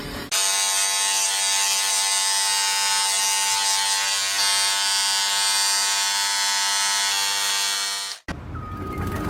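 A small electric motor buzzing at a steady pitch. It starts suddenly just after the beginning and cuts off abruptly about eight seconds in.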